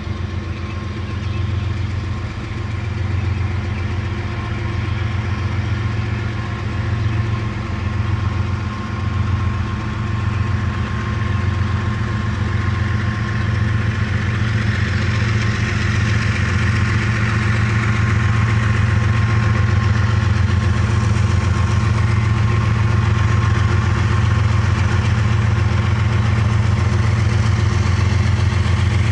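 Diesel locomotives of an approaching BNSF loaded coal train: a steady low engine drone that grows gradually louder, with a rising hiss of the train building from about halfway in.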